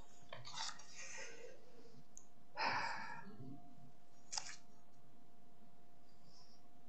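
Paper rustling as pages are handled and turned, loudest a little under three seconds in, with a short click about a second and a half later.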